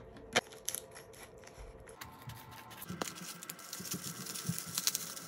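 Clear plastic bubble wrap crinkling and rustling as it is unwrapped by hand. A few sharp clicks come in the first second, and the crackle gets busier from about two seconds in.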